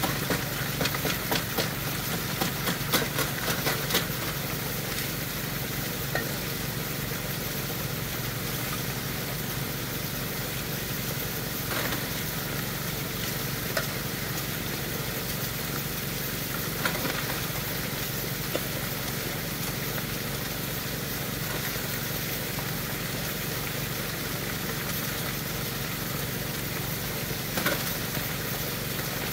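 Water spraying steadily through a high banker's spray bar onto pay dirt in the hopper, over the steady hum of a small pump engine. Gravel and rocks clatter in the hopper in a quick run during the first few seconds, with single knocks now and then after.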